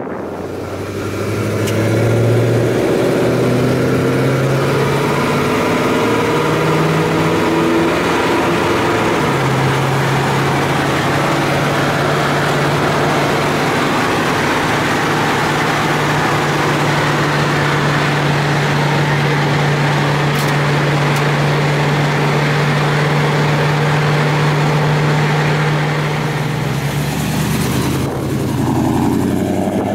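1956 Ford F-100 pickup's engine heard from inside the cab. For the first several seconds it accelerates up through the gears, its pitch climbing and dropping back at each shift, then it settles into a steady drone at cruising speed.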